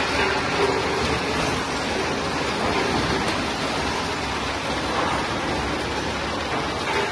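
Scrap-processing conveyor line running, carrying cracked engine scrap past an overhead magnetic separator drum: a steady, even mechanical noise with no single knocks standing out.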